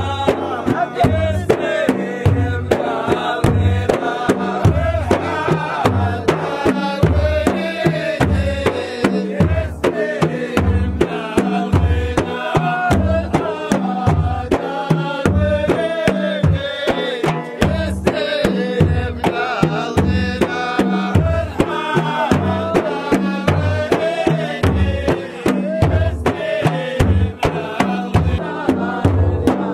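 Men singing together in chorus over large hand-beaten frame drums keeping a steady, deep beat, with handclaps.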